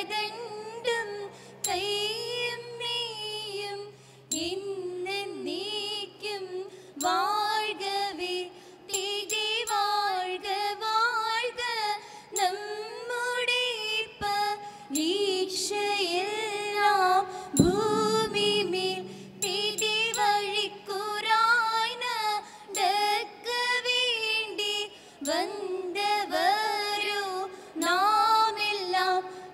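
Women singing a Margam Kali song, a melodic chant in short phrases with sliding, ornamented notes and brief breaths between them. One sharp knock sounds a little past halfway.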